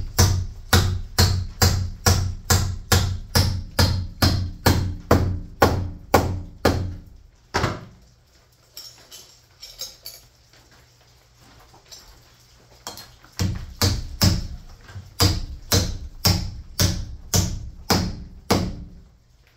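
Hammer driving nails into a wooden framing header overhead, about three ringing blows a second. The blows stop for about five seconds in the middle, then resume.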